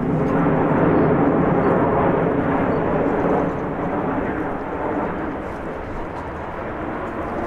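Jet noise from a formation of nine CT-114 Tutor jet trainers, each with a single turbojet, passing overhead: a broad steady rush, loudest for the first three seconds or so and then fading as they move away.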